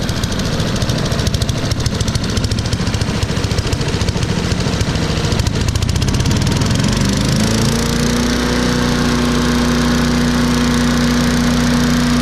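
Troy-Bilt chipper shredder's 250 cc Briggs & Stratton 1150 Series engine running at a low idle, then throttled up about seven seconds in, its pitch rising and settling into a steady high-speed run.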